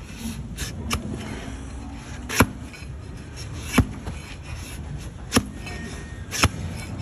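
Long-handled hoof-trimming blade chopping down through a donkey's hoof horn onto a wooden block. There are four sharp chops, about one to one and a half seconds apart, with a few lighter knocks before them.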